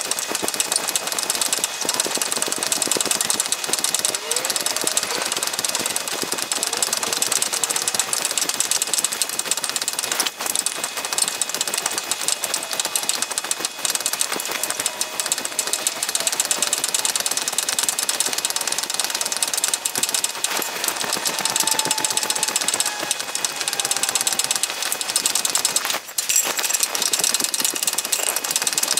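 Sheet-metal press hammer with a white-tipped hammerhead pounding a steel disc against a soft rubber pad in a fast, unbroken stream of blows, doming and stretching the metal. The hammering stops briefly a couple of times.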